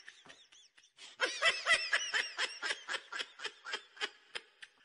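Laughter: a quick run of short, high ha-ha pulses, about four or five a second, starting about a second in and trailing off near the end.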